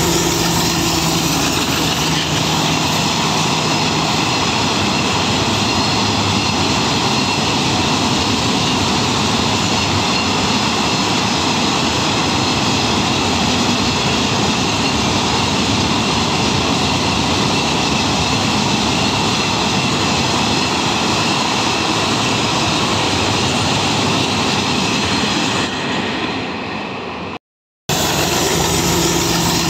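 Freight train of cement tank wagons passing close by: a steady, loud noise of steel wheels running on the rails, with the diesel locomotive's engine tone heard in the first few seconds as it moves off. The noise fades near the end, cuts to silence for a moment, then starts again at full level.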